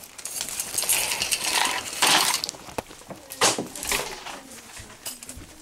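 Handling noise from a handheld video camera being moved about: rustling and scraping, with a few sharp knocks in the second half.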